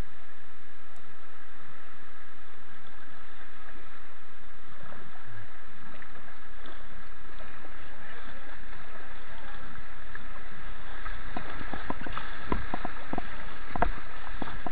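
Rushing white water of a shallow grade 1 rapid, a steady noise heard through a helmet-mounted action camera. From about eleven seconds in, short sharp splashes of paddle strokes and water slapping come through over it.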